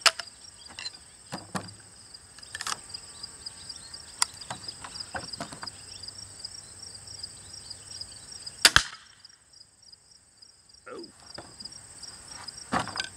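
Clicks and knocks of a pistol crossbow being handled and loaded, then one sharp crack as it fires, about eight and a half seconds in. Insects chirp steadily and high underneath.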